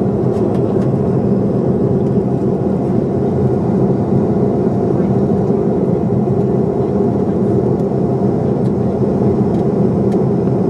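Steady cabin noise inside an airliner in flight: a continuous drone of engines and rushing air, with a low steady hum running through it.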